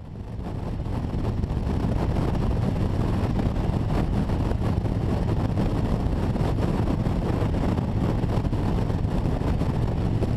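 Harley-Davidson touring motorcycle engine running steadily at highway speed, with wind rushing over the microphone. The sound fades in over about the first second and then holds level.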